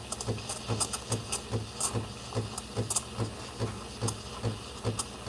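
Breville Barista Pro steam wand hissing into a stainless pitcher of milk as it steams, with scattered crackles from the milk surface and an even low pulsing from the machine about four times a second.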